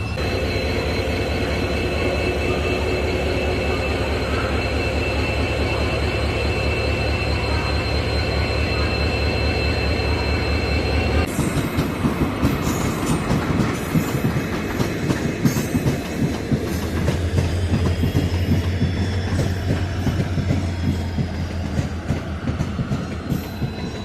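WDP-4D diesel locomotive, a two-stroke EMD engine, running steadily with a low pulsing drone and a thin high whine. About eleven seconds in, the sound switches abruptly to a train rolling on the track, wheels clattering irregularly over rail joints.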